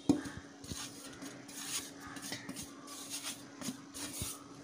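Steel spice plate clinking, tapping and scraping against a stainless steel bowl as ground spices are shaken off it. One sharp clink at the very start, then irregular light taps and short scrapes.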